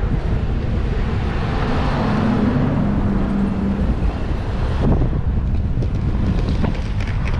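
Strong wind buffeting the microphone, mixed with road traffic passing alongside. A passing vehicle's steady engine hum stands out from about two seconds in to about four seconds in.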